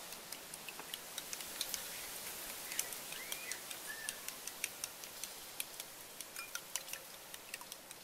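Metal spoon beating eggs in a glass bowl, clinking sharply and irregularly against the glass several times a second.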